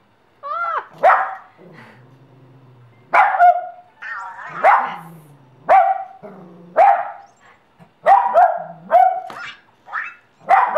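A puppy barking repeatedly: about a dozen short, sharp barks in uneven runs.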